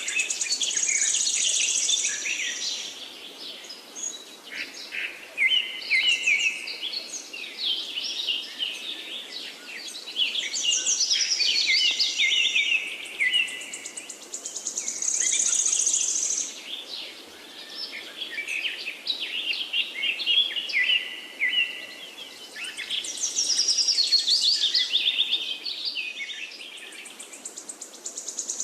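Several birds singing and calling at once in a dense chorus of chirps and whistles, with a high buzzing trill that comes back every several seconds.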